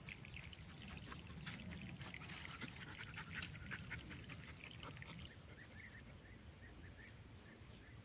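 Faint high-pitched insect buzzing that comes and goes in stretches of about half a second to a second, over soft scattered ticking and rustling.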